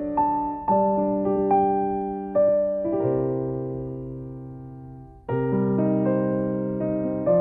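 Background music: soft piano playing slow chords and single notes, one chord ringing out and fading before the next is struck about five seconds in.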